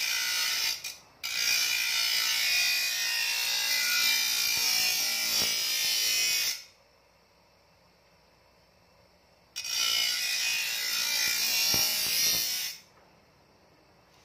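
A motor-driven grinding disc grinding the steel edge of a shovel blade to sharpen it, a harsh, hissing grind. There is a brief break about a second in, then a long pass of about five seconds, a pause of about three seconds, and a second pass of about three seconds.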